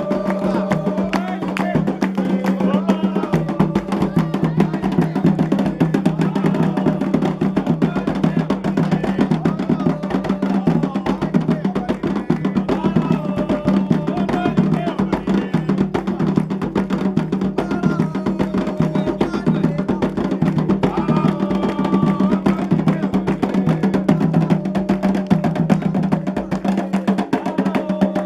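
Candomblé ritual music: rapid, continuous drumming on atabaque hand drums with a struck, wood-block-like percussion pattern, and singing over it.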